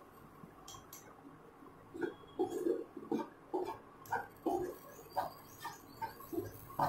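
A spatula scraping and stirring thick mashed chana dal stuffing in a frying pan: faint at first, then from about two seconds in a run of irregular scrapes and soft knocks, roughly two a second.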